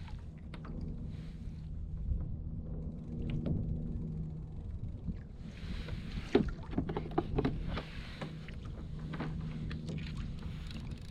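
Water sloshing against a kayak with scattered clicks and knocks of gear being handled, over a low steady hum. There is a spell of splashing and clattering from about halfway through.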